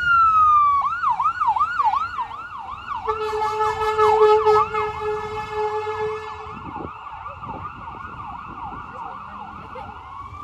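Siren of a passing Long Beach Fire Department emergency vehicle: a wail falling away, then a fast yelp of quick rising and falling sweeps. About three seconds in, a steady blaring horn tone sounds over it for about three seconds, and near the end the siren climbs again into a slow wail.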